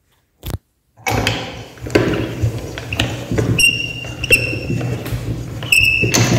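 Hand-cranked cast-metal meat grinder turned with chocolate pieces in its hopper: the auger crunches and knocks the chocolate against the metal, with clattering throughout and a few short, high squeaks from the turning mechanism. It starts after a single click, about a second in.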